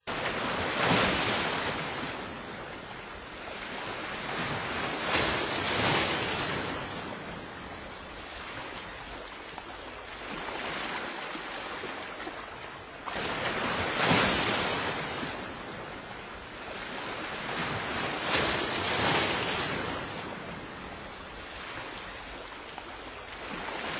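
Sea waves breaking, a rushing noise that swells and fades every four to five seconds.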